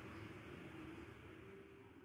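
Very faint background music with a few held low notes, fading away.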